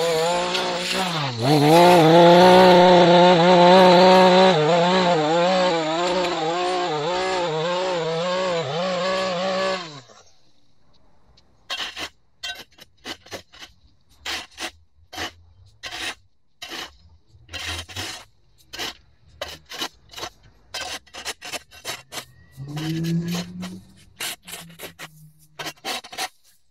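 Maruyama gas stick edger running as its blade cuts along the edge of a concrete walkway, the engine pitch dipping as the blade bites and then wavering under load, cut off suddenly about ten seconds in. Then a shovel scrapes along the walkway edge in short, irregular strokes, about one or two a second.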